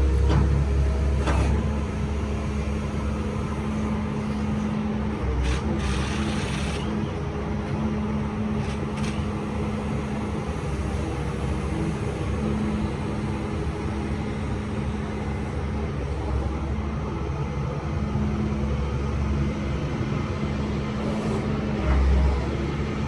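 Doosan DX170W wheeled excavator's diesel engine running steadily, with a short hiss about six seconds in.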